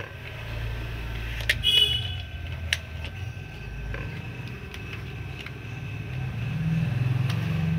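Plastic toy vehicles rolling over a concrete floor with an uneven low rumble, and a few sharp plastic clacks about two seconds in as the toy loader knocks against the toy jeep.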